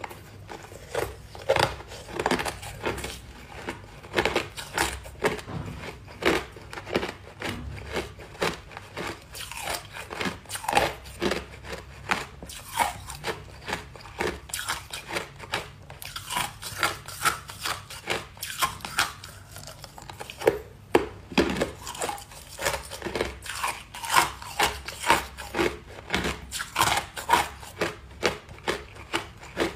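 A person biting and chewing ice cubes: a long run of sharp, irregular crunches and cracks, several a second.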